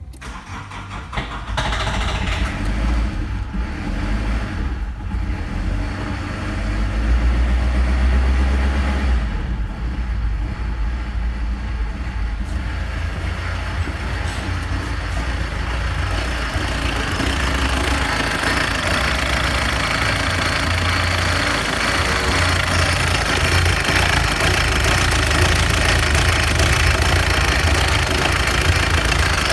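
Nissan CD20T 2.0-litre four-cylinder turbodiesel starting about a second and a half in, then idling steadily with a diesel knock. The clatter comes through louder and clearer in the second half, with the microphone close to the engine.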